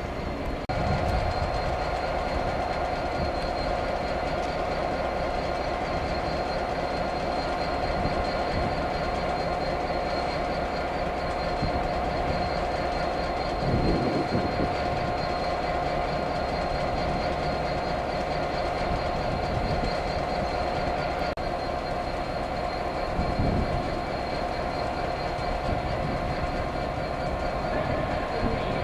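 Passenger train running at speed, heard from inside the carriage: a steady rumble with a constant hum that gets louder about a second in. Two low wheel thumps come through, one about halfway and one later on.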